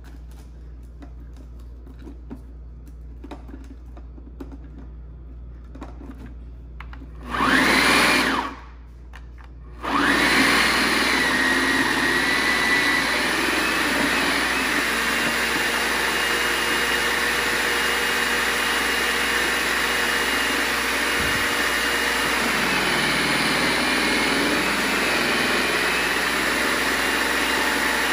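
Veggie Bullet electric food processor's motor runs briefly with a rising whine about seven seconds in, stops, then switches on about ten seconds in and runs steadily. It is shredding collard greens pushed down its feed chute. Before that there are a few light clicks from handling the plastic parts.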